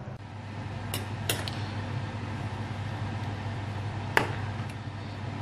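Metal spoon clinking against a stainless steel pot while stirring vegetable soup: a few sharp clinks about a second in and one louder clink near the end, over a steady low hum.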